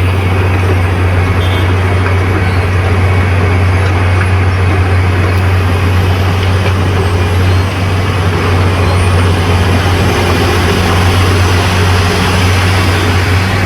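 Heavy road-repair machinery running steadily: a loud, constant low engine drone over a wide rumbling noise, with a brief dip about eight seconds in.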